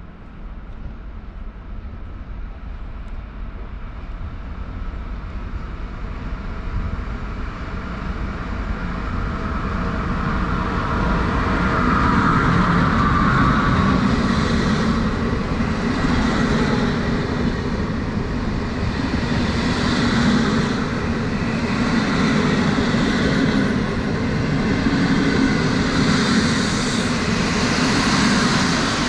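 An intercity passenger train hauled by an EU07 electric locomotive approaching and rolling past while slowing for its stop. The sound builds over the first dozen seconds, then the coaches run by with steady rolling noise and occasional louder wheel clatter.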